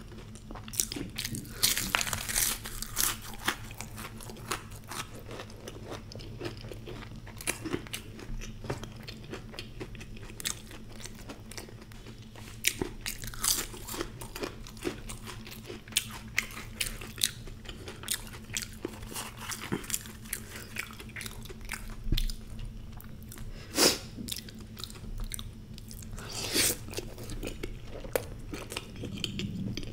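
Close-up eating sounds of deep-fried puri with spiced potato curry being bitten and chewed: wet mouth clicks and crunches throughout, with a few louder bites, and finger-licking near the end.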